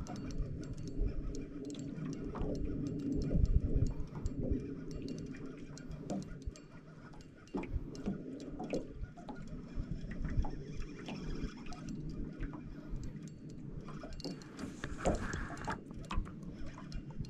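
Scattered light clicks and ticks over a low rumble, with a slightly louder patch about fifteen seconds in.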